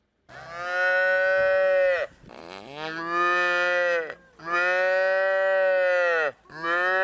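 Cow mooing: four long, steady moos, one after another with short pauses.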